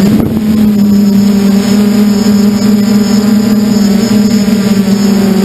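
Steady drone of an FPV model aircraft's motor and propeller, heard through its onboard camera, with a brief wobble in pitch just after the start.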